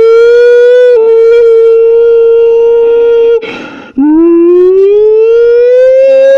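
A child's voice through a cardboard toilet-paper tube imitating a tornado siren, very loud: a long held wail, a quick breath about three and a half seconds in, then a second wail that winds up in pitch and holds. It echoes in a small bathroom.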